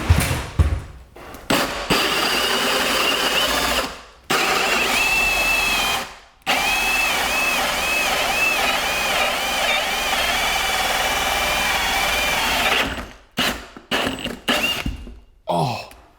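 Power drill boring through a wooden wall, running in three long bursts with short stops between. Its motor whine wavers and dips again and again as the bit loads up. A few knocks follow near the end.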